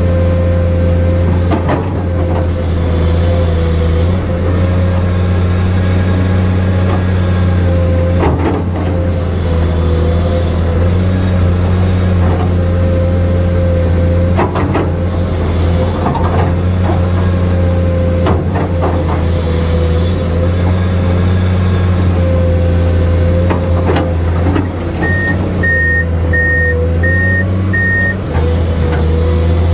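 Komatsu PC210 hydraulic excavator's diesel engine running steadily under load with a steady whine, as the bucket digs and swings sand, with several sharp clanks. Four short electronic beeps sound near the end.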